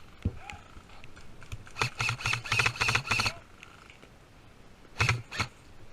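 Airsoft gun firing a rapid string of shots, about seven a second for roughly a second and a half, then two more single shots near the end.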